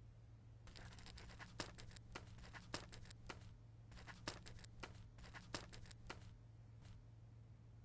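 Faint scratching of a pen writing on paper in a run of short strokes with small ticks, over a steady low hum.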